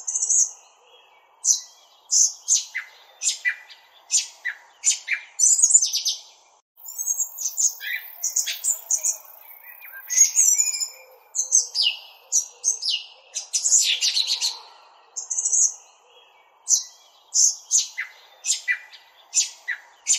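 A small songbird chirping: short, sharp, high calls and quick twittering phrases repeated every second or so, with a brief break about seven seconds in.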